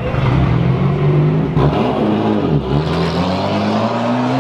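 Car engine revving loudly. Its pitch climbs, drops sharply about two and a half seconds in, then rises steadily again.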